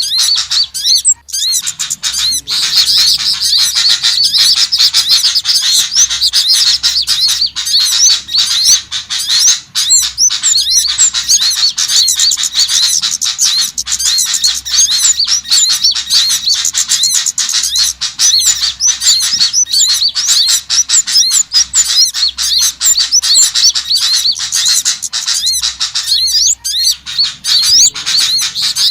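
A dense chorus of small songbirds playing as a bird-lure recording: many high, rapid chirps and calls overlapping without a break.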